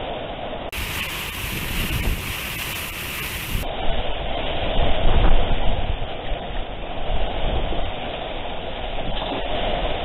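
Typhoon wind buffeting the microphone in gusts, over the steady hiss of rain.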